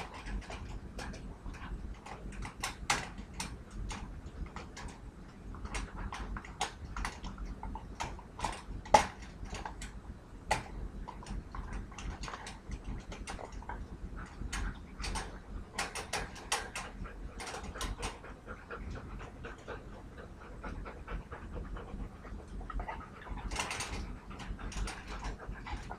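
Wire dog crate door rattling and clinking in irregular metallic clicks and knocks as a yellow Lab puppy noses at the latch from outside and a golden retriever pushes at the door from inside. One knock about nine seconds in is the loudest.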